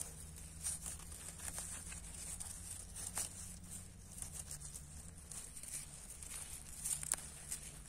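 Wild greens being picked by hand: scattered light snaps and rustles of leaves and stems being torn off, with a sharper click about three seconds in and again near the end.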